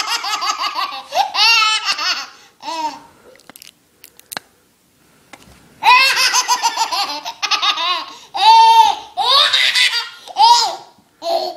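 A baby laughing hard in repeated high-pitched belly-laugh fits, with a pause of about two seconds in the middle before the laughter starts up again.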